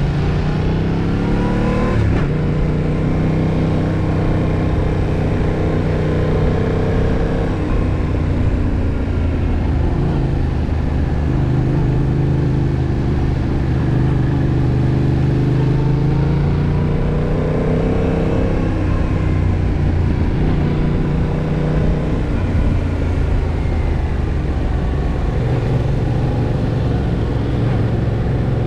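Yamaha MT-07 (2021) parallel-twin engine running hard under load on the move, revving up in the first two seconds and dropping sharply on a gear change. It then holds a fairly steady pitch, with another rise in revs about two-thirds of the way through.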